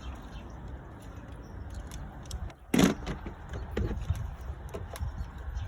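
Metal tool work under a car: light clicks and one sharp knock about three seconds in, over a steady low rumble, as a screwdriver pries down on a rusted fastener holding a cord by the radiator.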